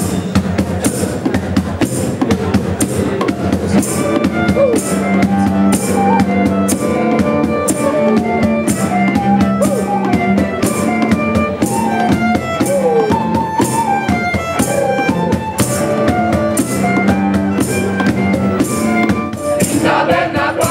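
A small acoustic ensemble plays an instrumental introduction. A cajón beats a steady rhythm, and cellos and a violin carry a melody that comes in about four seconds in. A choir starts singing near the end.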